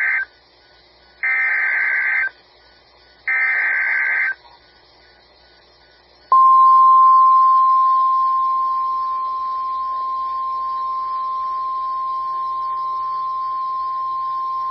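NOAA Weather Radio Emergency Alert System alert tones: the last two of the three SAME digital header bursts, each about a second of harsh buzzing data screech, a second apart. About two seconds later the weather radio's single-pitch 1050 Hz warning alarm tone starts, a steady high beep that begins loud and eases off over the first couple of seconds, signalling that a warning follows.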